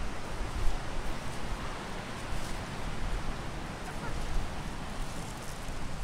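Wind buffeting the microphone over the steady wash of ocean surf on a beach.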